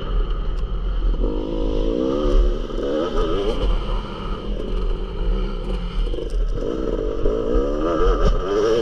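Yamaha YZ250 two-stroke motocross bike engine revving hard as it is ridden around a dirt track, its pitch rising and falling over and over with throttle and gear changes, heard close up from an onboard camera.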